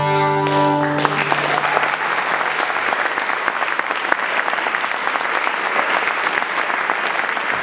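The final chord of a fiddle band's reel, played on fiddles, acoustic guitar and upright bass, rings out and stops about a second in, then the audience applauds steadily.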